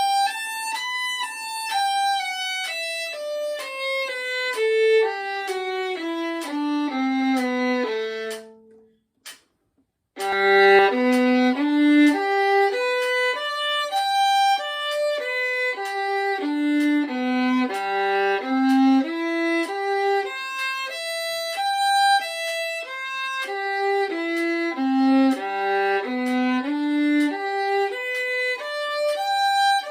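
Solo violin playing a G major scale descending stepwise to the low G, slurred eight notes to a bow. After a short pause about eight seconds in, it plays G major arpeggios that rise and fall.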